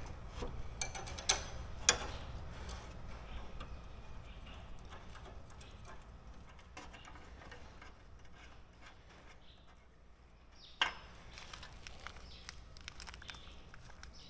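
Scattered metal clicks and taps from bolts, sickle sections and tools being handled while a draper header's cutter bar is bolted together. A few sharp clinks come in the first two seconds and one more about eleven seconds in, over a low steady hum.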